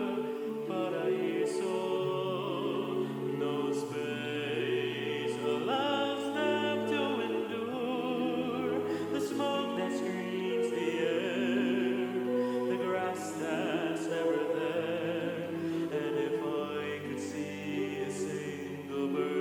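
Live singing in a slow, classical style, with long held notes and vibrato over accompaniment.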